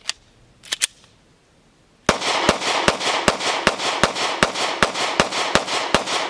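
Anderson Manufacturing Kiger 9C 9mm pistol: a few handling clicks, then about two seconds in a rapid, steady string of shots, roughly two and a half a second, about eleven in all.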